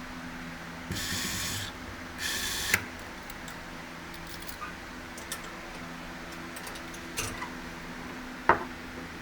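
Screws being driven into the pulley and drive hub with a power driver: two short hissing bursts about a second apart, then a few light metal clicks and taps, the sharpest near the end.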